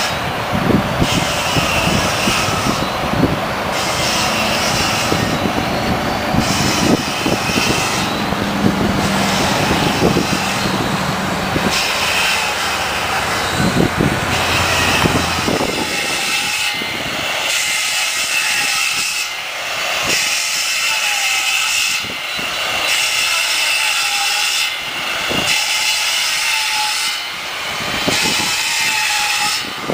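Heavy earthmoving machinery running and working, loud and continuous. About halfway through, the deep engine rumble falls away and a hissing, higher-pitched mechanical noise carries on.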